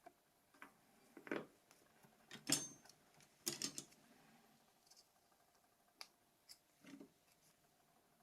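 Faint clicks and scrapes of small Nokia 7230 phone parts being handled during disassembly: several short taps, the loudest about two and a half and three and a half seconds in.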